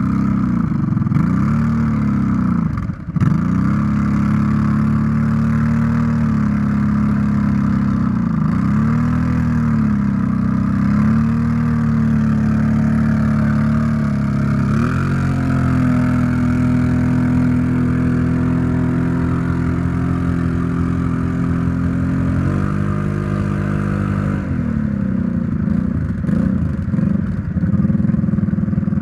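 ATV engine revving hard in repeated rises and falls, held at high revs for several seconds in the middle, as the quad sits stuck in deep mud with its wheels spinning and throwing mud.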